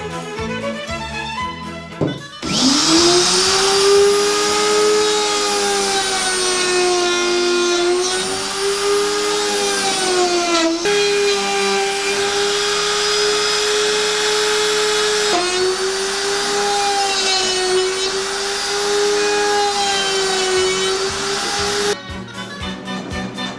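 Electric plunge router running and cutting wood: a loud, high motor whine that starts about two seconds in and stops near the end, its pitch wavering and dipping slightly as the bit takes the cut. Background music plays before it starts and after it stops.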